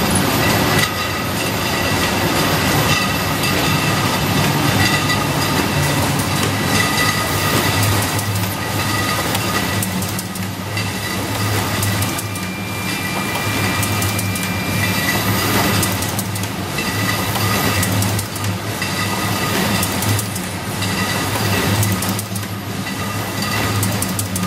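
WA Flex 514 bottle case-packing line running: conveyors and packing mechanisms keep up a steady hum with continuous rattling and clatter as liquor bottles are fed in and boxed.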